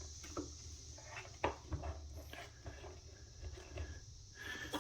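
A few light, scattered clicks and knocks from hands handling and refitting the plastic parts of a robot vacuum, over a faint steady hum.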